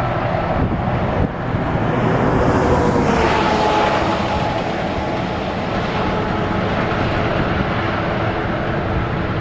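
Steady road and engine noise inside a moving car, with a faint engine tone rising a little about two to four seconds in.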